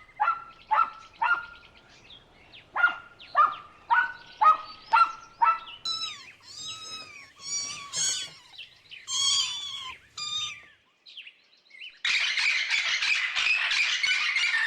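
A series of animal calls: about ten short, evenly repeated pitched calls, then several longer arching calls, then a dense chorus of many overlapping squawking calls starting about twelve seconds in.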